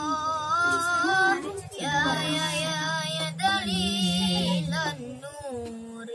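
A child's voice singing an Islamic sholawat in Arabic, holding long notes that waver and bend in pitch, with a lower steady note underneath for a few seconds in the middle.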